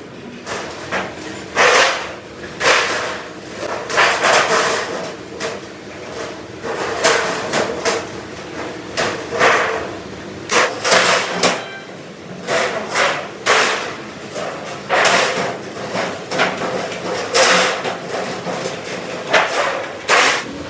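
Workshop clatter: irregular sharp metal knocks and hammer blows, sometimes several a second, over a faint steady machine hum.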